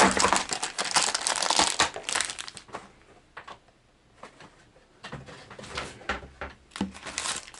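Crinkling and rustling of plastic soft-lure bags and packaging as they are pulled from a mailed cardboard box. Dense crackling for about two and a half seconds, a quiet pause, then more crinkling from about five seconds in.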